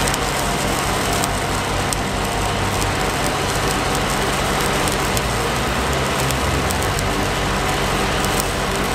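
Stick-welding arc crackling and sizzling steadily as a 7018 electrode burns along the bracket seam, with the engine of a Miller diesel engine-driven welder running underneath as a low hum.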